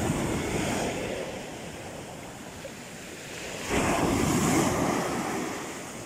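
Small surf waves breaking and washing up a sandy beach on a rough sea, with wind on the microphone. The wash eases off in the middle and a fresh wave swells in a little under four seconds in.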